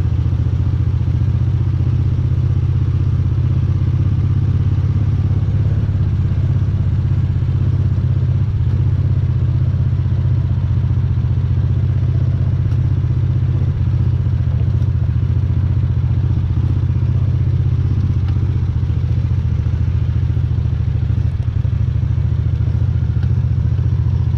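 Engine running steadily at an even speed, with no change in pitch.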